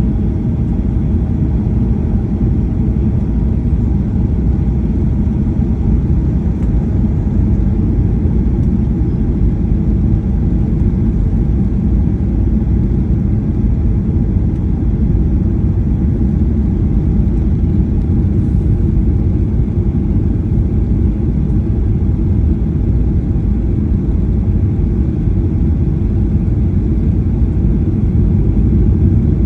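Cabin noise of a Boeing 737-800 airliner on approach: a steady deep rumble of its CFM56 turbofan engines and airflow past the fuselage, with faint steady engine tones above it.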